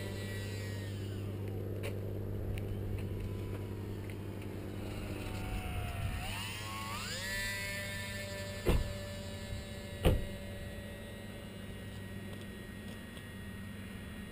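Whine of the RC plane's small 3000 Kv brushless electric motor and propeller in flight. The pitch falls away as the throttle comes back, dips again about six seconds in, then climbs and holds steady. Two sharp knocks about a second and a half apart come shortly after.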